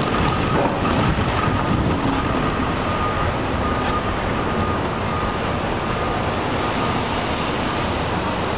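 Steady rumble of wind on the microphone mixed with city street traffic, with a faint thin whine held through most of it.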